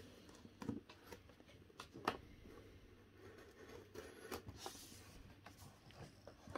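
A blade slitting packing tape along a cardboard box: faint scratching with scattered small clicks.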